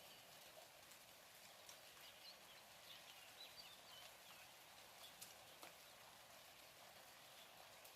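Faint, steady hiss of light rain with scattered drips ticking irregularly, and a few faint high chirps near the middle.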